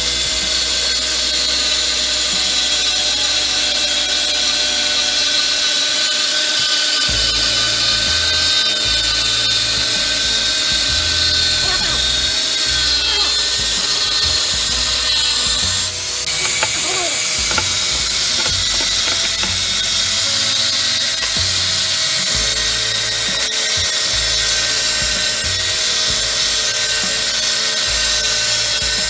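Angle grinder with a thin cut-off disc cutting through a metal strip, throwing sparks: a steady high whine with a grinding hiss, unbroken throughout.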